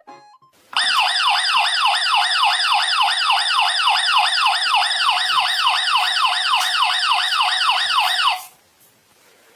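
Electronic emergency-vehicle siren: a fast yelp of falling sweeps, about three to four a second, starting just under a second in. It stops suddenly about eight and a half seconds in.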